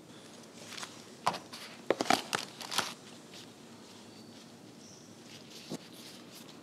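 Food-prep handling noises: a quick cluster of sharp clicks and knocks about one and a half to three seconds in, then quieter rustling as gloved hands work through shredded pastry strips, with one more click near the end.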